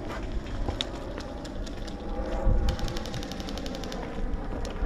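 Wind rumbling on the microphone, with scattered single clicks. A little past the middle comes a rapid burst of sharp clicks, about a dozen a second for just over a second: an airsoft gun firing on full auto.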